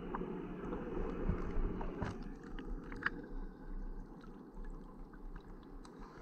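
Muffled underwater water noise around the submerged camera, which gives way about two seconds in to light water lapping and small drips with scattered ticks as the camera comes up to the pond surface.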